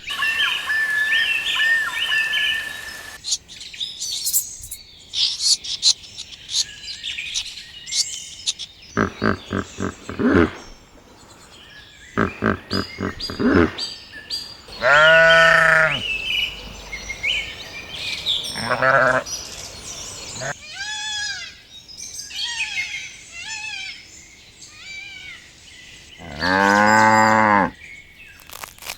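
A series of farm animal calls: birds chirping, bleating about a third of the way in, and cows mooing, with two long moos about halfway and near the end.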